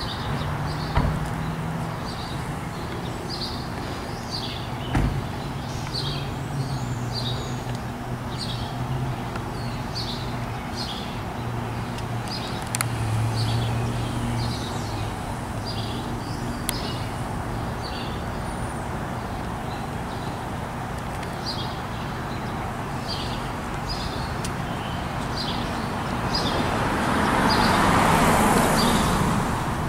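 Small birds chirping in quick, repeated short calls over a steady low hum of distant traffic. A car passes near the end, its noise swelling and then fading.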